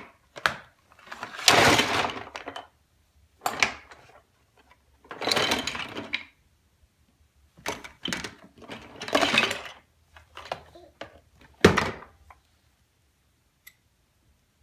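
Toys clattering and rattling in a plastic toy bin as a toddler rummages through it, in bursts of about a second each with clicks between them. There is one sharp knock near the end, and then it goes quiet.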